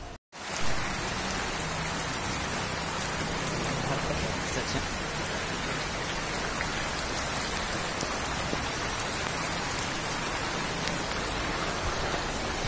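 Heavy rain pouring steadily onto a flooded street and standing water: a dense, even hiss that cuts in just after a brief moment of silence at the start.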